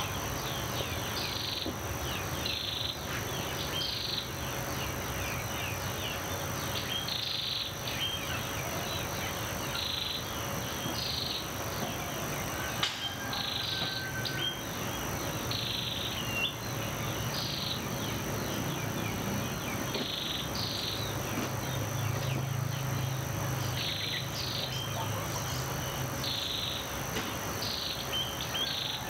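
Morning nature ambience: a steady, high insect trill with short high chirps repeating every second or two over a low hum.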